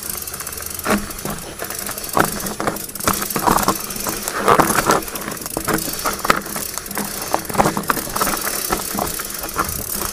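Diamondback Mason Pro hardtail mountain bike rattling and clattering as it rolls over a rocky dirt trail, with irregular knocks as the tyres hit rocks and ruts.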